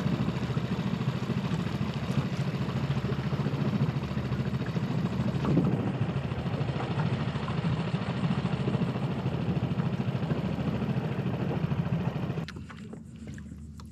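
Small outboard motor running steadily at low speed, pushing a tender along; about twelve seconds in it drops away sharply to a much quieter sound as it is throttled back to come alongside.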